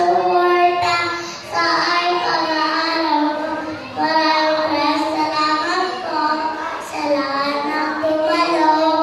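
A young girl singing solo into a microphone, in phrases of held notes with short pauses between them.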